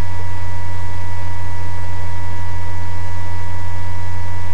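Steady electrical hum with hiss: a loud, constant low buzz with a few faint higher steady tones, and no other sound.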